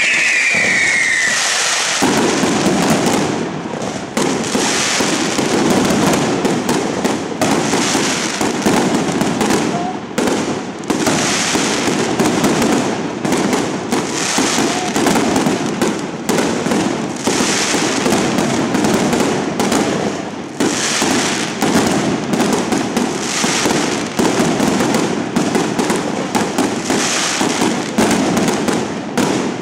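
Mascletà firecracker barrage: a few falling whistles fade out in the first second or so, then a dense, continuous rattle of firecrackers bursting overhead, with surges of sharper cracks every second or two.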